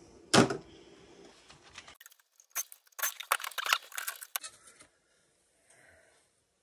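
Hand work inside a steel desktop computer case. A sharp click comes about half a second in, then about two seconds of rattling clicks and knocks of metal and plastic parts as the CPU heat sink is worked loose and lifted out.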